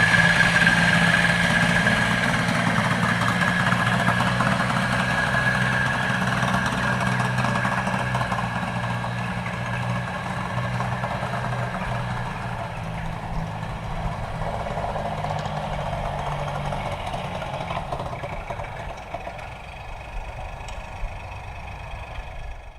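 Tractor engine running steadily at a low, even speed, growing gradually quieter until it cuts off abruptly at the end.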